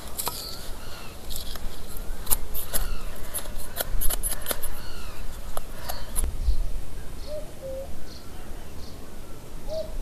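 A knife whittling a wooden spoon from a stick: a quick run of short scraping and cutting strokes over roughly the first six seconds, growing sparse after that, while birds call.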